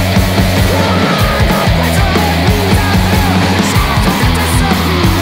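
Loud, distorted noise-punk rock music: a heavy low riff with pounding drums, and short gliding notes sliding over the top.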